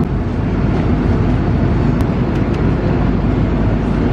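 Airliner cabin noise in flight: the steady, loud, low rumble of the engines and the air rushing past the fuselage. A brief click sounds about two seconds in.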